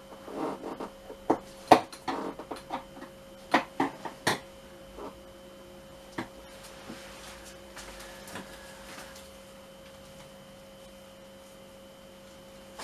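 A string of sharp clicks and knocks from handling tools and scooter parts during a teardown, dying away about five seconds in and leaving only a faint steady hum.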